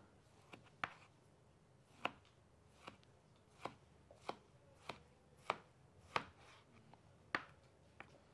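Knife slicing a tomato into rounds on a plastic cutting board: about a dozen faint, sharp taps as the blade cuts through and hits the board, roughly one or two a second.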